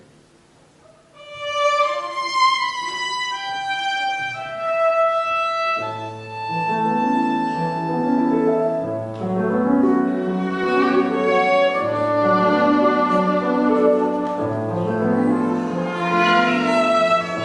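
Solo violin playing a slow, lyrical melody that resumes after a brief pause. About six seconds in, keyboard accompaniment joins with sustained low chords beneath it.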